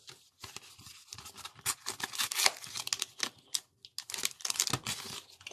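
Foil Pokémon booster pack wrapper crinkling and tearing as it is opened by hand: a run of irregular crackles.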